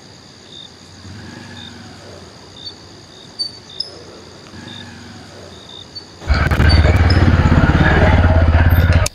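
Crickets chirping over a faint, approaching motorcycle engine; about six seconds in the motorcycle's engine becomes loud and close, running steadily, then cuts off abruptly near the end.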